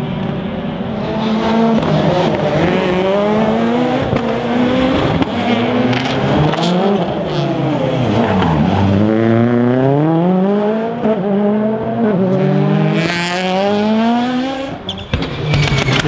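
Rally car engines revving hard through the gears: the engine note climbs in pitch and drops back with each upshift, again and again. About halfway through it falls away briefly and climbs again as the car lifts off and re-accelerates.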